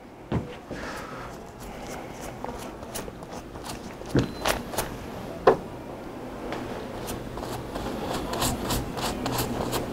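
Hair colour being brushed onto a hair section laid on highlighting paper: faint scraping and rustling strokes, with a few sharper clicks around the middle.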